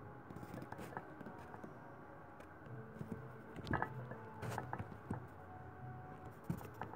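Quiet room sound with a low hum and scattered light taps and clicks, with a few sharper knocks near the middle and again near the end.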